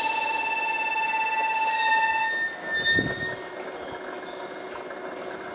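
Meitetsu electric commuter train braking to a stop at the platform. A steady high squeal with several overtones cuts off about two seconds in, followed by a short low rumble about three seconds in as the train halts.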